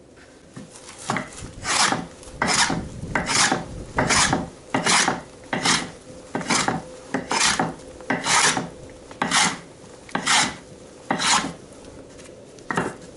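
Hand tool drawn along a seasoned birch plank in regular rasping strokes, a little more than one a second, shaving the wood.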